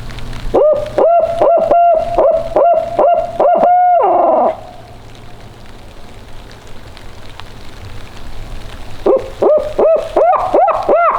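Owl locator call imitating a barred owl: two loud runs of rapid hoots, about eight in each, every run ending in a drawn-out falling note. The hooting is meant to make nearby gobblers shock-gobble in answer.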